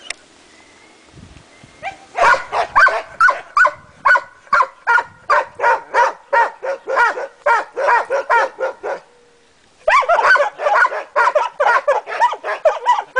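Balkan hound barking in a fast, even run of high barks, about three or four a second. It breaks off for about a second, then starts again.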